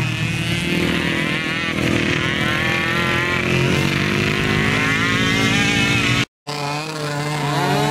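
Small youth quad's engine revving up and down as it rides away along a dirt trail. The sound cuts out for a moment a little after six seconds in.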